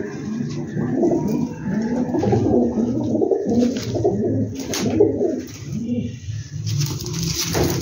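Domestic pigeons cooing: repeated low, wavering coos through most of the stretch, with a brief rustling burst near the end.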